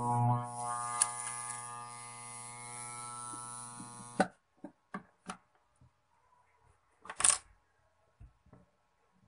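Armature growler humming steadily, a deep electrical drone with many overtones, switched off abruptly about four seconds in. The hacksaw blade held on the armature makes no chatter, which reads as no shorted coils. After the hum stops there are a few light knocks and a short scrape as the armature is handled.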